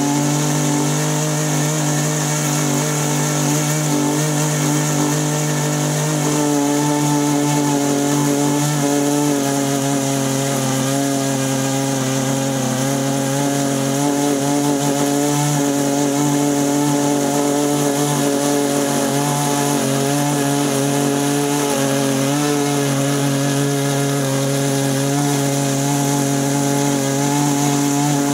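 OS 120 nitro glow engine of a radio-controlled airboat running steadily at a held throttle, its pitch wavering slightly and shifting a little about six seconds in.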